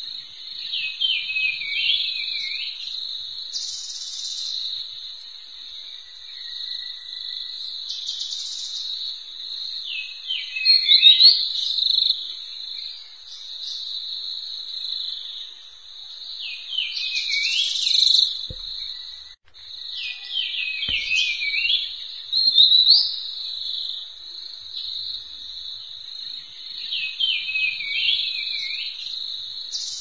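Steady high-pitched trilling of insects, with a bird calling over it about five times: each call a short cluster of notes dropping in pitch.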